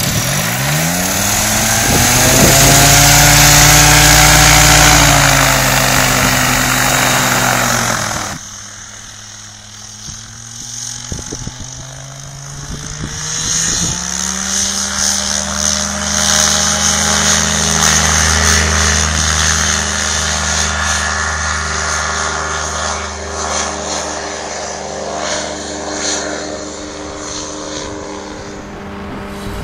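Motorized hang-glider trike's engine and pusher propeller running up close by: the pitch climbs over the first couple of seconds and holds high for a few seconds. The sound cuts off abruptly about eight seconds in. From about fourteen seconds a steady, slightly wavering engine note returns from farther off as the trike makes its takeoff run at full power.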